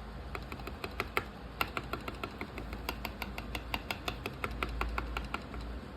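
Typing on a mechanical keyboard with Outemu switches: a quick, irregular run of sharp key clicks, several a second, stopping near the end. The keys sound without the rattle the owner fixed by replacing a defective switch.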